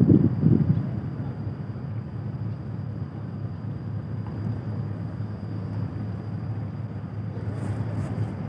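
Steady low hum of a large moored passenger ship's machinery running as it waits to depart, louder and gustier for about the first second. A faint steady high whine runs under it.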